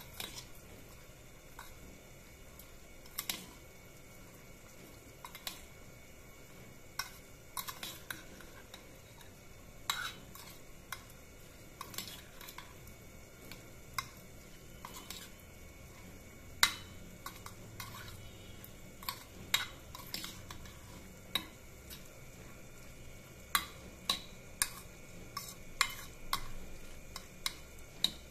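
Steel spoon stirring a wet mix of yogurt and chopped vegetables in a stainless steel bowl, with irregular clinks of spoon against bowl. The clinks come more often and louder in the second half.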